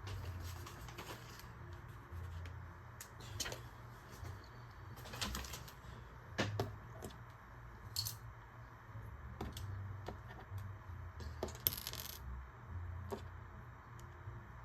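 Small plastic Lego pieces being handled: scattered sharp clicks and short clattering rattles, a few louder ones near the middle and near the end.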